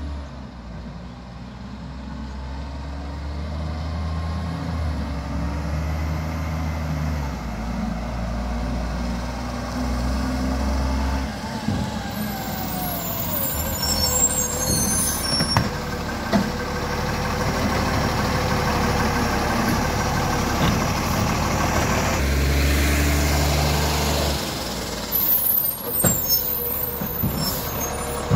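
Iveco side-loading garbage truck's diesel engine running as it approaches and pulls up, with a hiss of air brakes as it stops. Near the end the engine rises again and the hydraulic lifting arm clunks as it reaches out and grabs the wheelie bin.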